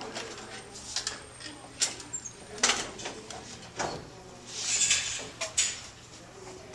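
Equipment being handled: scattered clicks and knocks, with a brief rustling swish about five seconds in.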